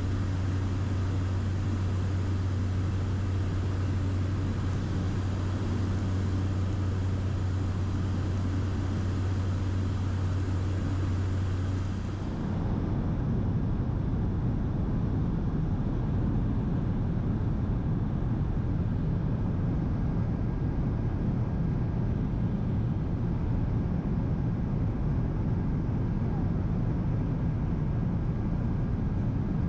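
Steady drone of a small propeller plane heard from inside the cabin in flight. A deep, even hum runs under the noise until about twelve seconds in, where the sound changes abruptly to a duller, rougher low rumble.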